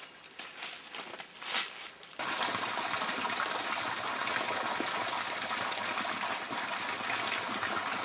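A steady rushing noise, like running water, cuts in abruptly about two seconds in. Before it there is only a faint, thin, steady high insect tone and a few soft rustles.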